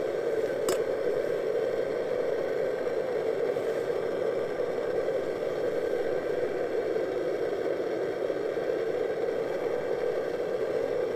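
MSR DragonFly liquid-fuel camp stove burner running steadily at full flame under a pan of frying trout, a constant roar. A single light clink sounds under a second in.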